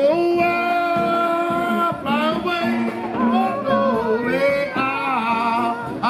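Street brass band playing: sousaphone, saxophones, trombone and bass drum. A note swoops up and is held for about two seconds, then the melody moves in shorter notes.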